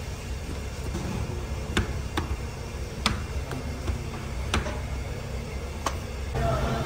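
Naan dough being rolled out with a rolling pin on a flour-dusted board: about five sharp knocks and taps, a second or so apart, over a steady low hum.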